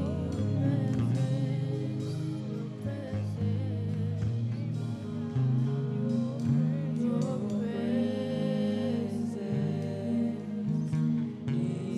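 Gospel worship music: singing over held instrumental chords.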